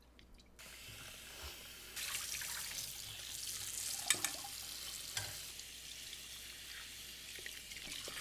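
Kitchen tap running cold water onto a steamed chicken leg in a bowl as it is rinsed. The water comes on about half a second in and runs harder from about two seconds in, with a couple of sharp splashes or knocks around four and five seconds.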